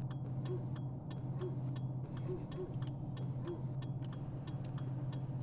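Car cabin with the engine idling as a steady low hum, over a regular sharp ticking of about two to three ticks a second.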